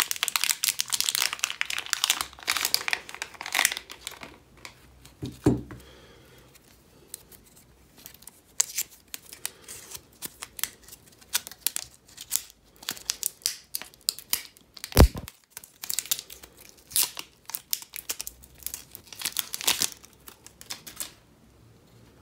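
Clear plastic wrap and protective film crinkling and being peeled off a small white power adapter and its coiled cable, in bursts with short pauses. A single dull knock about two-thirds of the way through.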